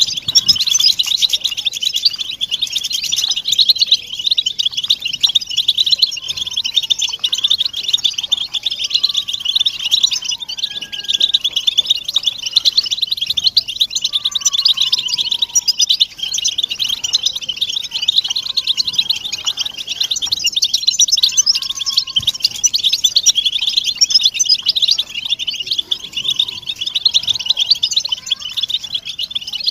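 A flock of European goldfinches (chardonneret élégant) calling together: a dense, unbroken chorus of overlapping high, rapid chirps and twitters. These are the goldfinches' massed contact and mating calls, used by keepers to stir a silent male into song.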